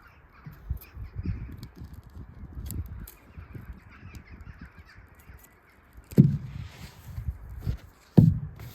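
A bird cawing twice, about two seconds apart near the end, over low rumbling and soft knocks.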